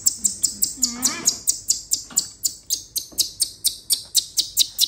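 Baby monkey crying in rapid, high-pitched shrieks, about five or six a second, with a longer wavering cry about a second in.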